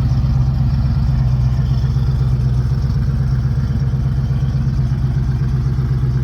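1965 Ford Mustang fastback's A-code 289 V8 with four-barrel carburettor, idling steadily.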